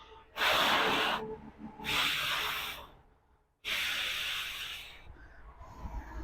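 Three breathy rushes of air, each about a second long with short gaps between: a person blowing or exhaling hard close to the microphone.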